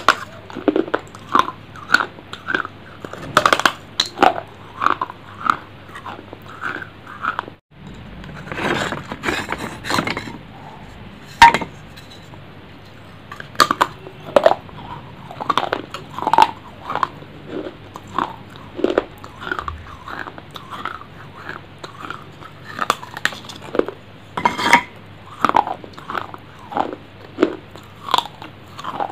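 Close-miked crunching bites and chewing, a sharp crunch about once a second. The sound cuts out briefly about eight seconds in.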